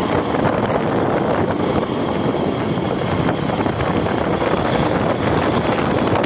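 Steady rush of wind over the microphone of a moving motorcycle, mixed with the bike's engine and road noise.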